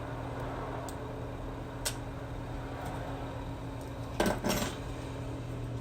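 Small hard parts and tools being handled on a workbench during phone repair: a few faint ticks, then a short double clatter about four seconds in, over a steady low hum.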